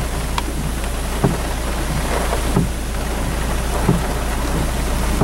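Heavy rain falling steadily, with a soft thump about every second and a quarter.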